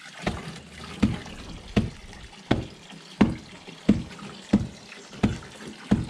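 A hand-held stone pounds fish-feed pellets wrapped in a mesh cloth on a wooden board, nine dull strikes in a steady rhythm a little faster than one a second, crushing the feed fine.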